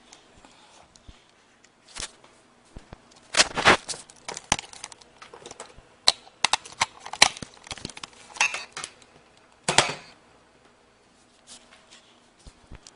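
Handling noise: irregular knocks, clicks and rustles, with louder rustling bursts about three and a half, seven and ten seconds in.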